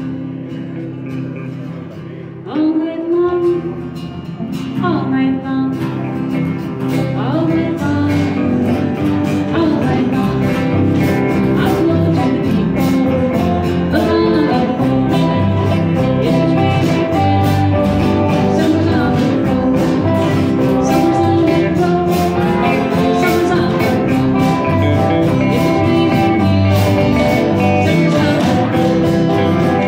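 A small live band playing a country-blues song in C: guitars open the intro, with a bending lead lick a couple of seconds in, and the band fills in fuller over the next few seconds. A woman sings over strummed acoustic guitar, electric guitars and bass.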